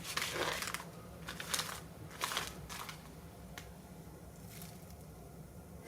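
Packaging rustling and crinkling in several short bursts, then a few faint clicks as it quiets down.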